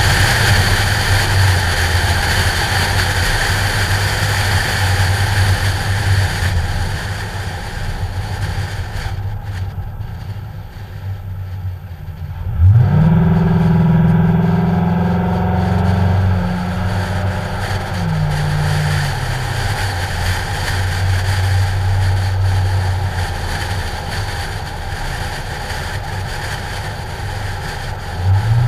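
Ford Mustang's engine and exhaust heard from a hood-mounted action camera, with heavy wind noise over it. The car cruises, eases off about a third of the way in, then revs up sharply about halfway through, its pitch falling back in two steps before settling into a steady cruise. A brief rev comes near the end.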